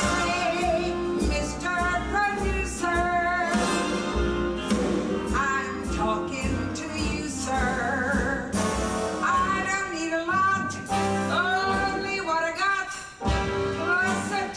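A woman singing a brassy Broadway show tune live, with instrumental accompaniment keeping a steady beat under her voice.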